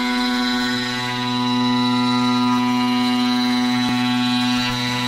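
CNC router spindle running with a small carbide insert end mill cutting a slot in steel: a steady whine made of many tones, with one brief tick about four seconds in.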